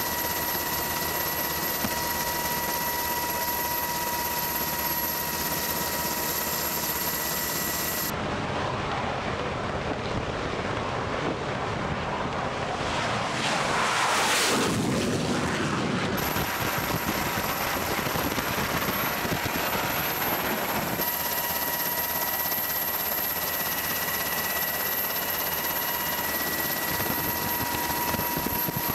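Jet aircraft noise: a steady rushing hiss with a thin high whine. Just under halfway through, a louder rush of X-47B turbofan jet noise swells and fades as the drone launches past.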